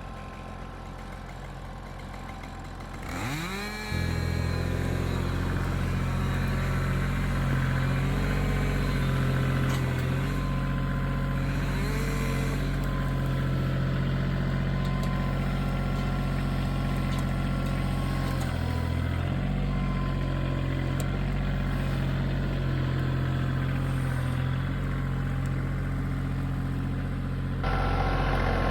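An engine sweeps up in pitch about three seconds in, then runs steadily at a low, even pitch. It gets a little louder again near the end.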